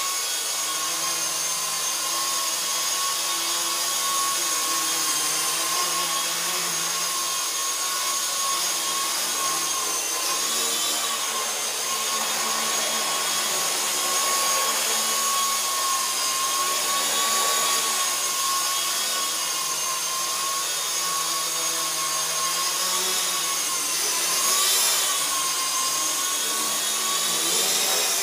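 WLtoys V912 micro RC helicopter's electric motors whining steadily in flight, with the whir of its rotors. The pitch wavers briefly about ten seconds in and again near the end as the rotor speed changes.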